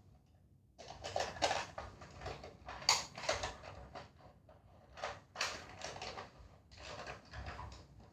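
Irregular plastic clicks and rattles from a Nerf foam-dart blaster being handled and readied, starting about a second in.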